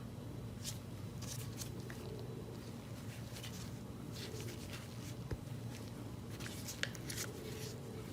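Small handling noises: intermittent soft rustles and light clicks, bunched about a second in and again near the end, over a steady low hum.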